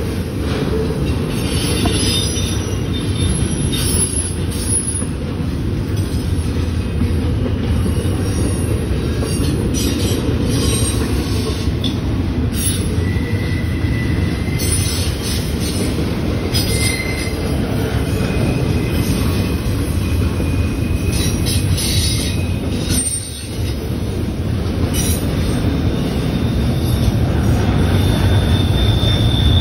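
Double-stack intermodal freight train rolling past, a steady heavy rumble of wheels on rail. Now and then thin, high wheel squeals sound for a second or several as the cars take the curve in the track.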